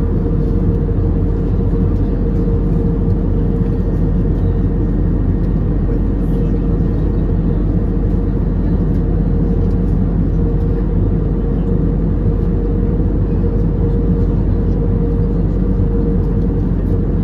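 Steady cabin noise of an Airbus A320 in flight, heard from a window seat over the wing: an even drone of engines and airflow with a constant hum running through it, early in the descent.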